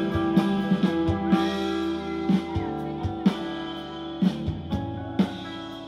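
Live indie-rock band playing an instrumental passage: electric guitars ringing held chords over bass guitar, with drum hits every half second to a second. The playing eases off a little about two seconds in.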